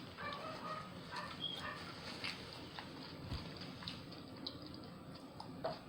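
A dog whining softly in short, high whimpers, mostly in the first two seconds, with scattered small clicks and taps. The dog is begging while food is being eaten nearby.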